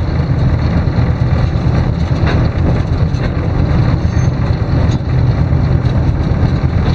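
GE 44-ton diesel-electric locomotive's twin diesel engines running steadily, heard from inside the cab, a loud, even low rumble as the locomotive rolls slowly through the yard.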